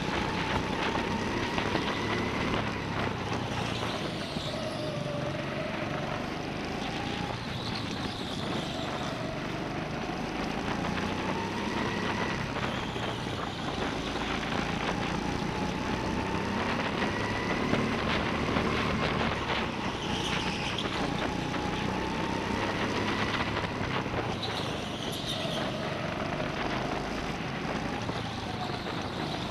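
Go-kart motor heard onboard while racing on an indoor track: a whine that slowly rises and falls in pitch as the kart speeds up and slows, over a constant noisy rumble.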